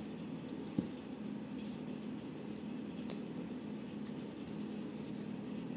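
Gloved fingers plucking basil leaves off their stems: faint soft snaps and rustles with a few small clicks, over a steady low hum.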